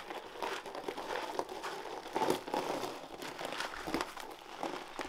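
A large CST mud tyre on its wheel being rolled by hand over loose gravel: a steady crunching and crackling of stones under the tread, with small knocks as it is stood upright.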